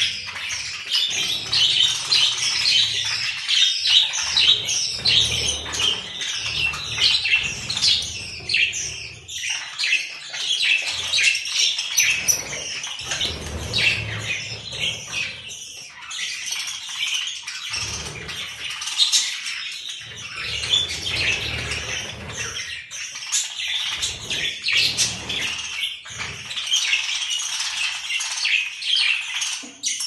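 A flock of budgerigars chattering: many rapid, overlapping chirps and warbles from many birds at once, without a pause.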